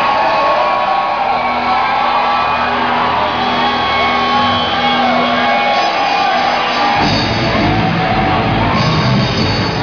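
Live heavy rock band playing loud, with a crowd shouting along; about seven seconds in, the low end of the music gets much heavier.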